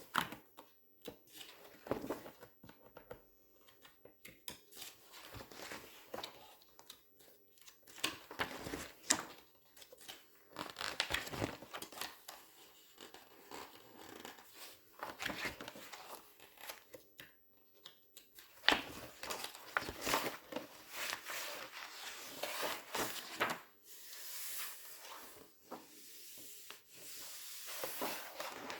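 Glossy magazine pages being handled close up: turned, rubbed and squeezed, giving irregular swishes and crinkling crackles.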